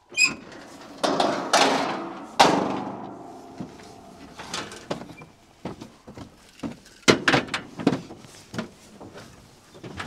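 Metal livestock trailer being opened: a run of clanks and bangs, the loudest about two and a half seconds in ringing on for a second or so, followed by lighter knocks and rattles and another cluster of bangs about seven seconds in.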